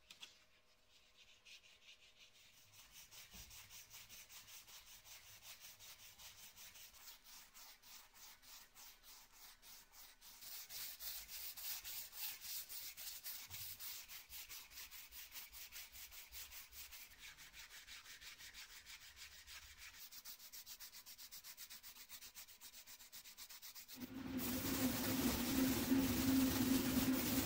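Hand sanding, abrasive rubbed in steady back-and-forth strokes, louder from about ten seconds in. Near the end a machine starts running with a steady hum, louder than the sanding.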